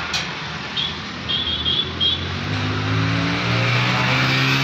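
Tractor diesel engine running and speeding up, its pitch rising steadily and getting louder from about two seconds in. A few short high chirps sound before that.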